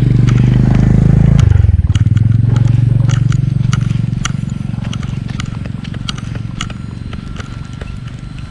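A motorcycle passing close by: its engine is loudest in the first second and a half, drops in pitch as it goes past, then fades steadily away. Scattered light clicks sound throughout.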